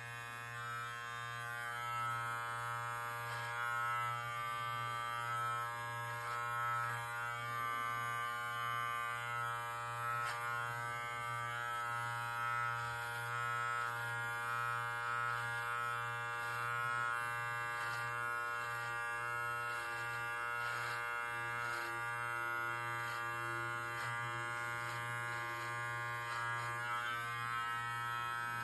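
Live Bearded MT-1 electric beard trimmer running steadily with an even buzzing hum, its level wavering slightly as it is worked through the beard.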